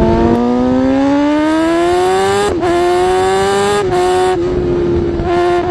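1994 Honda H100S motorcycle's single-cylinder two-stroke engine running at high revs, its pitch climbing steadily. The sound briefly breaks and the pitch dips about two and a half seconds in, near four seconds and near the end, then climbs again.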